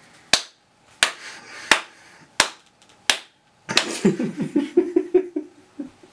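Five sharp open-hand slaps, about one every 0.7 seconds, followed by a couple of seconds of laughter.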